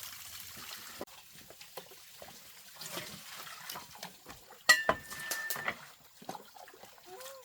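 Water trickling and splashing, with small knocks throughout. About five seconds in a metal cooking pot is knocked once and rings briefly.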